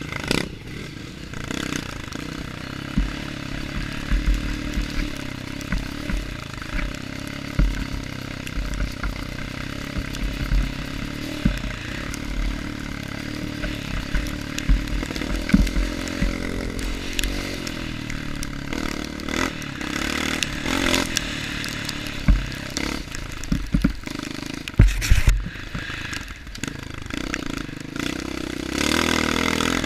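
Honda CRF230 dirt bike's single-cylinder four-stroke engine running while riding along a rough trail, the revs rising and falling, with frequent knocks and rattles from the bike over the bumps.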